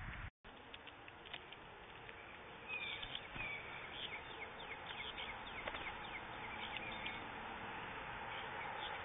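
Small birds chirping, a run of short high calls that starts about three seconds in and dies away near the end, over a steady hiss.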